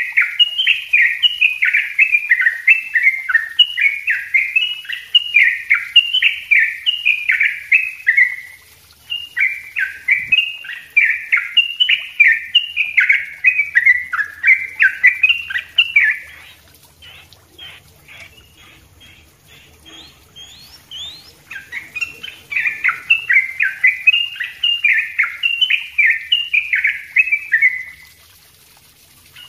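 Yellow-vented bulbul (trucuk) singing its rapid, tightly packed chattering song in long runs of quick notes. In the middle comes a quieter stretch of soft scattered notes, and the song pauses briefly near the end.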